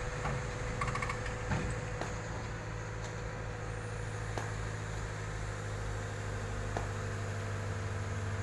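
Heavy construction machinery's diesel engine running steadily at a low idle-like hum, with a few faint separate knocks spread through.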